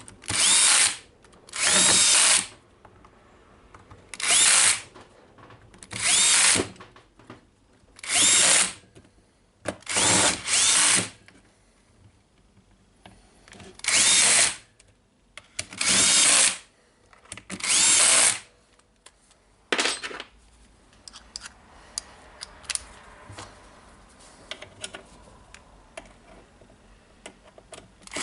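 Cordless drill-driver running in short bursts of about half a second to a second, about eleven times over the first twenty seconds, driving in screws to close up a circular saw's housing. After that come only faint clicks and handling sounds.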